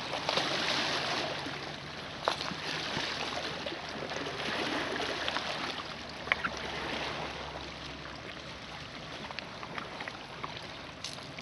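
Small lake waves lapping and washing against a stony shore, a steady rush of water noise, with a few light clicks.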